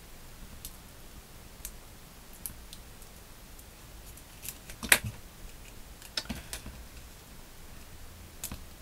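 Scattered small clicks and ticks from a craft knife picking at tape on folded paper, with one sharper click about halfway through and a few more soon after.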